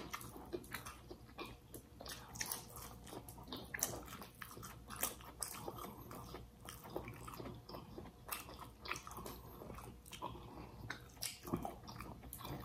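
Faint close-miked eating: two people chewing and biting into a roasted carrot and baked fish, with small irregular crunches and mouth clicks.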